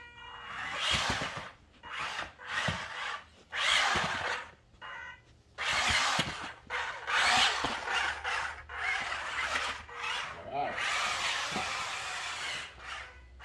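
Small electric drive motors and gearboxes of a 1/16 scale six-wheel-drive RC truck whining in repeated stop-start bursts as it is driven hard and spun with tank-style steering, tyres scrubbing on the rug.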